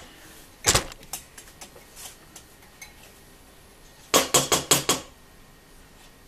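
Spatula scraping and knocking against a glass bowl held over a stainless steel mixing bowl, getting the last of the biscuit mixture out: one sharp knock about a second in, a few light clicks, then a quick run of about seven taps about four seconds in.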